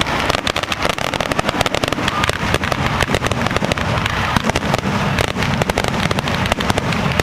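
Fireworks display going off in a rapid, unbroken string of sharp cracks and pops.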